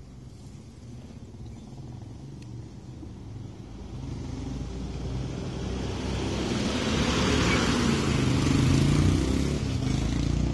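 A motor vehicle approaching and passing close by, its engine hum and rushing noise building steadily to a peak about nine seconds in, then falling away at the end.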